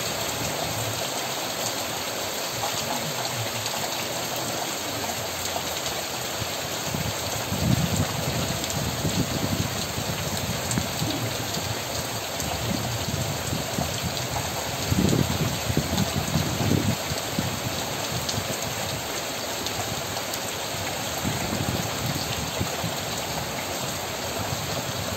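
Steady rain falling on trees, foliage and roofs, an even hiss throughout, swelling louder and deeper twice: about a third of the way in and again just past the middle.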